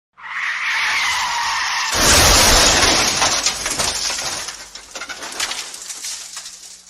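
Car tyres screeching in a skid for under two seconds, then a loud crash about two seconds in, with crunching and rattling debris fading out over several seconds: a car skidding and colliding, as a sound effect.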